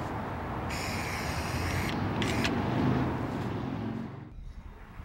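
Outdoor background noise with the rumble of a passing road vehicle, swelling to about three seconds in and then fading away near the end.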